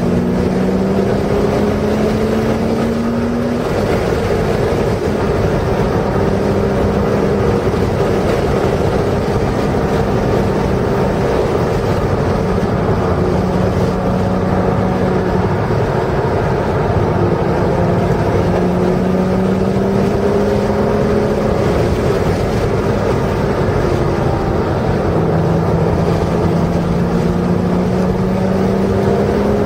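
Porsche race car's engine running on track under part throttle, heard from inside the car over heavy wind and road noise; its note holds and shifts in pitch through the corners and climbs near the end as the car accelerates.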